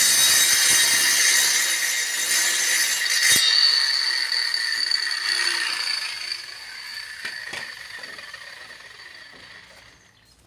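A power saw cutting wood, running loud with a steady high whine for about three seconds, a sharp knock just after, then the sound dies away over several seconds.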